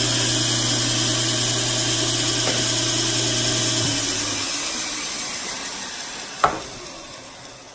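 Surface grinder's fine abrasive belt running against a hardened steel knife blade. About four seconds in, the motor hum stops and the belt winds down, fading away. A single sharp click comes about six and a half seconds in.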